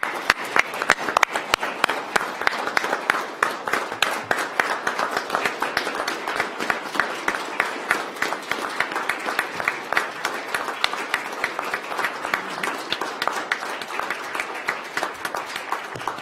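Applause from a room of people, many hands clapping in a dense, steady patter for about sixteen seconds.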